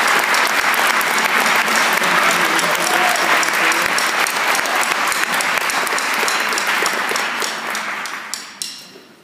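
Audience applauding, a dense patter of clapping that thins out and dies away near the end.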